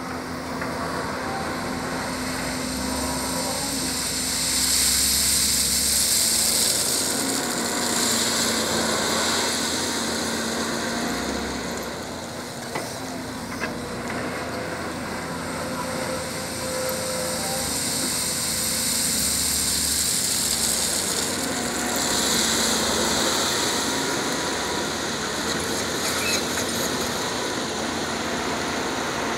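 Volvo EC210B crawler excavator's diesel engine running steadily with a whine as it digs and shifts crushed stone. It grows louder twice, around five seconds in and again past twenty seconds, with a couple of short knocks midway.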